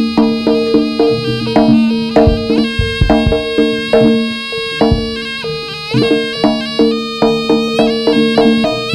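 Live Javanese jaranan ensemble music: a nasal reed-pipe melody over a steady held note, punctuated by regular kendang drum strokes.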